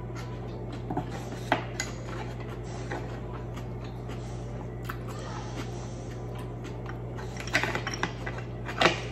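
Scattered taps and clicks of a wooden spoon and utensil on a wooden serving board as baked squid is picked apart and eaten, with the loudest knocks near the end.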